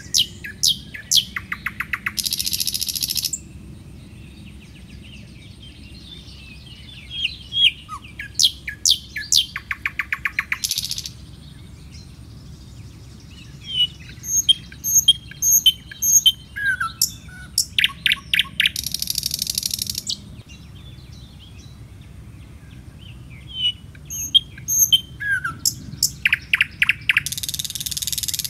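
A bird singing a phrase that repeats about every seven to eight seconds: a few sharp chirps, a fast rattling trill, then a harsh buzzy note of about a second. A steady low background noise runs underneath.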